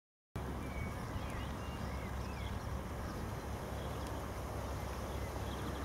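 Outdoor ambience: a steady low rumble, with a few faint, short, high chirps in the first couple of seconds.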